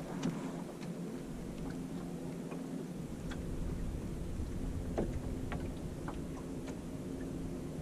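Small wooden sailing rowboat running downwind: water lapping and gurgling along the hull over a steady low rumble, with scattered light clicks and taps, the sharpest about five seconds in.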